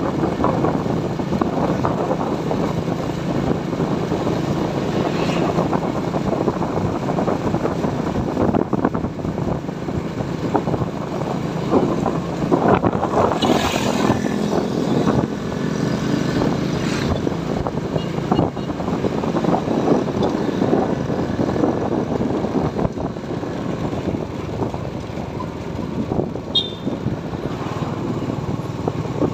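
Motorcycle under way: the engine running steadily, buried in heavy wind rush on the rider's microphone. About halfway through, the sound grows briefly louder and brighter, with other motorbikes close ahead.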